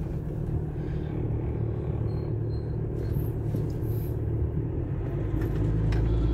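Car engine and road rumble heard from inside the cabin as the car creeps slowly forward, a steady low hum that grows a little stronger near the end.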